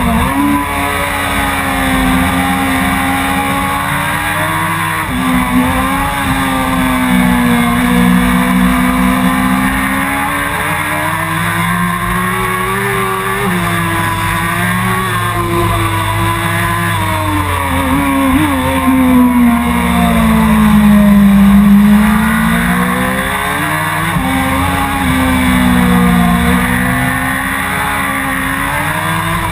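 Suzuki GSX-R 1000's inline-four engine at race pace on track, its pitch repeatedly climbing and falling as the rider accelerates, brakes and changes gear.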